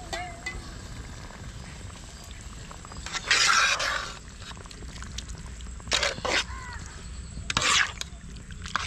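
Long metal ladle stirring thick gravy in a large metal pot: the liquid sloshes and scrapes in four short bursts, the longest and loudest about three seconds in.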